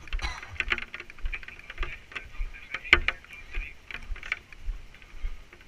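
Irregular clicks, knocks and low thumps from a vehicle cabin jolting along an uneven track, with one loudest knock about three seconds in.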